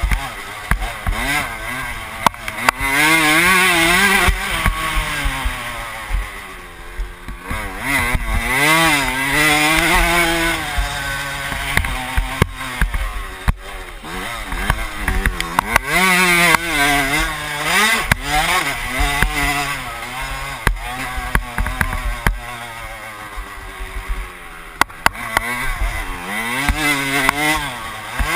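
Dirt bike engine revving up and down over and over as the rider opens and rolls off the throttle around a motocross track, heard close from the rider's helmet, with scattered sharp knocks.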